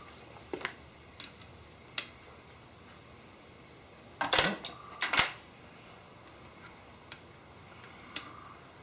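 Hex keys and other small metal hand tools clinking against the milling machine as one is picked up: a few light clicks, then two louder metallic clanks about four and five seconds in.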